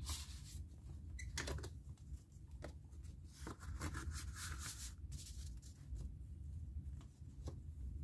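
Paper rustling and rubbing as thick cardstock pages of a ring binder are turned and a recipe card is slid out of a paper pocket, with a longer sliding rustle around the middle.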